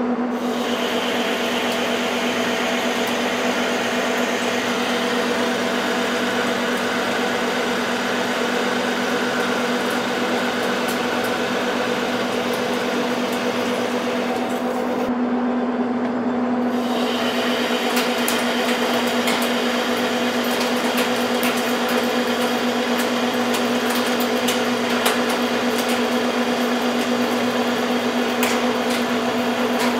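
Metal lathe running with its chuck spinning: a steady hum with a strong low tone and a hiss, as the tool takes facing passes across the nut blank. The hiss stops briefly a little past halfway and then returns, and scattered light ticks come through in the later part.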